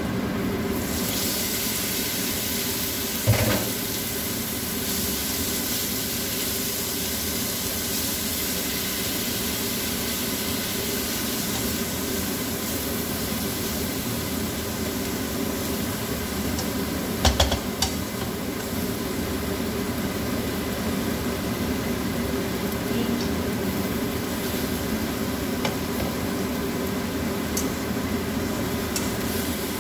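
Thinly sliced meat frying in a hot nonstick wok with onions, sizzling from about a second in as it goes into the pan, and being stirred with a spatula. A sharp knock about three seconds in and a short clatter around seventeen seconds.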